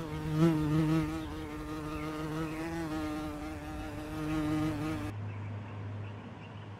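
A flying insect buzzing in a steady, slightly wavering hum that cuts off suddenly about five seconds in, leaving a fainter low hum.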